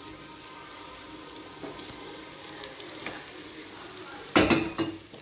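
Carrots, beans and masala frying in oil in a nonstick kadai, with a steady sizzle. About four seconds in comes a brief loud thump as the boiled fusilli pasta is tipped into the pan.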